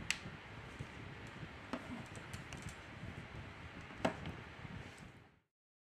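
Light clicks and taps of a plastic smartphone being handled and turned over on a tabletop, with one sharper tap about four seconds in. The sound cuts off abruptly near the end.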